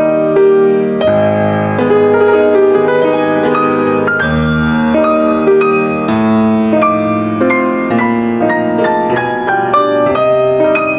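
Solo piano music, a gentle melody with chords, notes struck in quick succession and left ringing.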